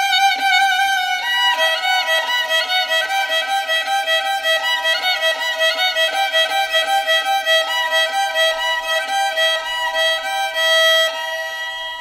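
Violin playing a melody: a held note with vibrato, then a run of short repeated notes at about three a second, ending near the end on a louder held note that stops suddenly and leaves a fading ring.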